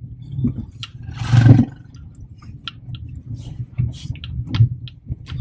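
Cabin noise of a Hyundai i10 driving over a rough gravel track: a low engine-and-road rumble with frequent small rattles and clicks from the car as it goes over the bumps, and one loud rushing thump about a second in.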